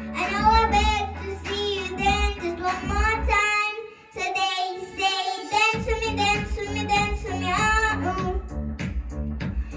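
A young girl singing a pop song into a microphone over a backing track with a steady beat. About four seconds in, the bass and beat drop out for roughly a second and a half, then come back under her voice.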